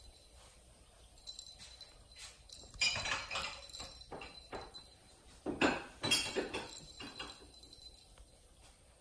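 A kitten playing on a plush cat tree, batting a dangling ball toy and scrambling with its claws on the fabric: a run of rustles and small clicks and clinks, loudest about three seconds in and again about five and a half seconds in.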